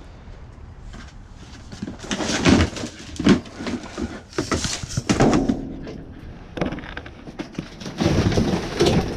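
Junk being rummaged through and moved around by hand: irregular knocks, scrapes and rustles, in two bouts, the first starting about two seconds in and the second near the end.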